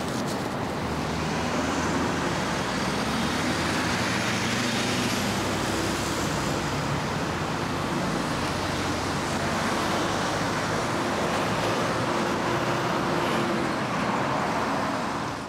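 City road traffic: cars passing with a steady wash of tyre and engine noise, and a low engine hum running underneath.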